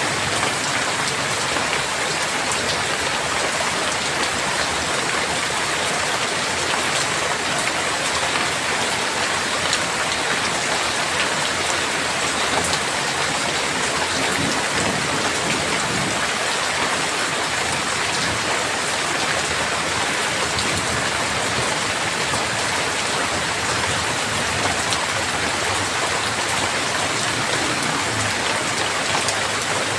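Heavy rain falling steadily: an even hiss flecked with the ticks of many individual drops hitting surfaces.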